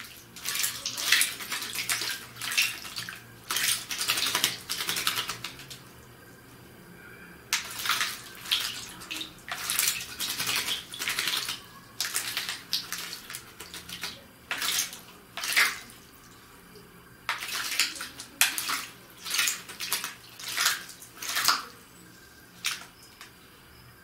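Common blackbird bathing in a shallow plastic tub of water: quick bursts of splashing as it dips and flicks its wings, in three spells with short pauses between.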